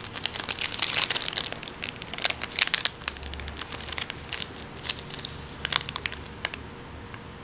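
Instant-noodle seasoning packet crinkling in the hands as it is squeezed and emptied, a quick irregular crackle that is thickest for the first few seconds and thins out after.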